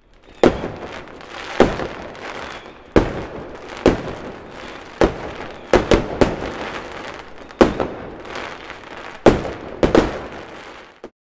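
Fireworks going off: about a dozen sharp bangs at uneven intervals with crackling between them, cutting off suddenly near the end.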